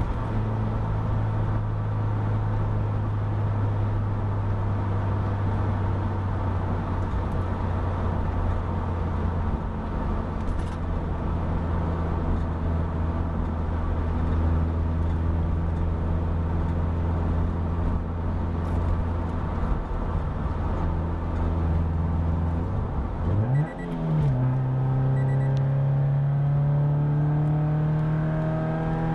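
Inside the cabin of a 2013 Scion FR-S, its 2.0-litre flat-four engine drones steadily through an SRT header-back exhaust at around 3,000 rpm while cruising. Late on, the pitch dips and jumps as the car is shifted into a lower gear, and the engine note then climbs steadily as it accelerates near 5,000 rpm.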